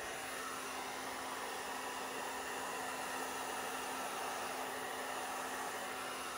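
Hair dryer blowing steadily on wet acrylic paint, an even rush of air with a faint low hum beneath it.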